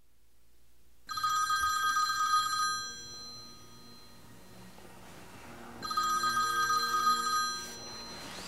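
Telephone ringing twice, each ring a steady high tone about a second and a half to two seconds long, with about three seconds between them.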